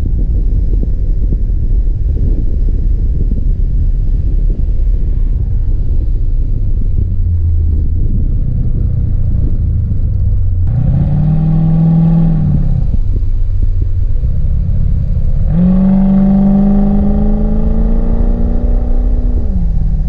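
C4 Corvette V8 running with a low rumble, then revving up twice: a short rise about ten seconds in, and a longer, slowly climbing rev from about fifteen seconds in that lasts about four seconds before dropping away.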